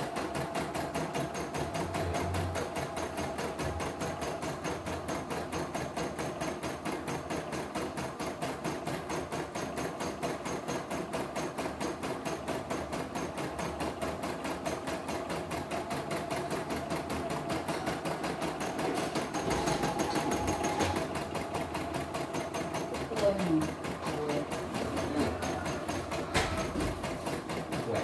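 CNY E960 computerized embroidery machine stitching out an embroidery design, its needle running at a fast, even rate. A couple of short knocks come near the end.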